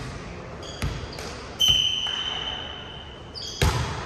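Volleyball rally in a gym: a ball struck four times, the hits about a second apart with the hardest near the end, and high sneaker squeaks on the court floor in between, one drawn out for over a second.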